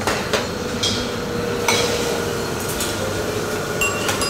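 Dining-room background noise from a busy buffet, with scattered clinks of dishes and cutlery, a few ringing clinks near the end.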